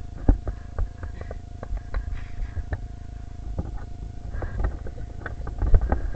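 Irregular knocks, taps and clicks of a Nerf blaster and its mounted camera being handled and carried about, over a low rumble and a faint steady hum.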